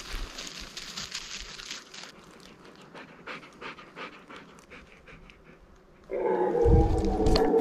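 Dog panting in a steady rhythm, with crunching of dry leaf litter in the first two seconds. About six seconds in, a much louder sustained sound with several pitches and a low rumble cuts in.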